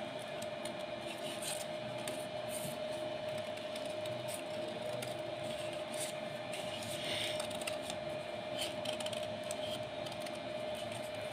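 Sheets of golden paper rustling and crackling as they are handled and lifted, with scattered short crisp clicks, over a steady hum.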